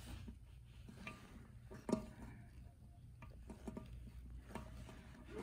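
Faint small clicks and taps of fingers pressing a silicone valve seal into its hole in a stainless-steel pressure cooker lid, the loudest click about two seconds in.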